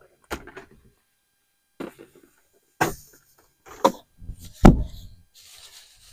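A series of about five separate knocks and thumps, roughly a second apart, the loudest a heavier thud about three-quarters of the way through: things being handled and set down, or doors and lids knocking.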